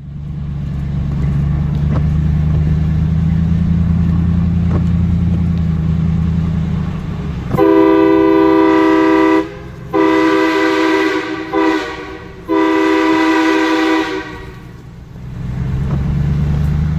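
Low, steady drone of the truck running, then an off-brand train-style air horn that sounds like a Nathan K3LA gives three blasts of about one and a half to two seconds each, sounding a chord. The drone returns near the end.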